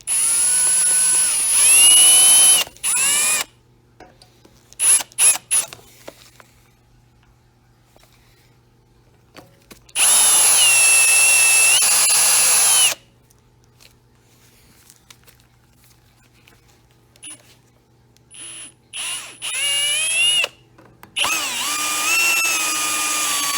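Electric drill with a 7/32-inch bit running in bursts, drilling out a stuck metal part of a high-pressure waterjet swivel. There is a long run at the start, a few short blips, another run about ten seconds in, and repeated runs from about eighteen seconds on, its whine dipping and rising in pitch as the bit bites.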